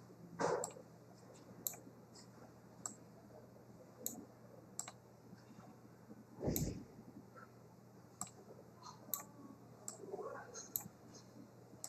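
Computer mouse clicks at irregular intervals while working in Flash, with a single dull thump about halfway through.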